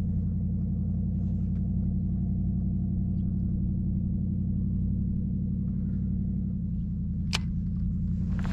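Steady electric hum of the bow-mounted MotorGuide Xi3 kayak trolling motor running, holding one even pitch throughout. A single sharp click comes near the end.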